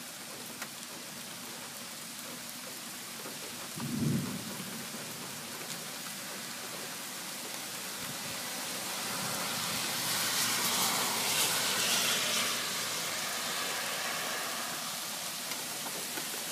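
Steady rain falling during a thunderstorm, with a brief low rumble of thunder about four seconds in. Past the middle the rain hiss swells louder for a few seconds, then eases.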